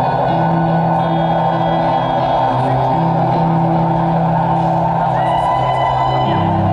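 Live band music led by electric guitars: a dense, sustained wash of guitar over slow, held bass notes that change every second or two. A thin high tone glides up about five seconds in and holds for about a second.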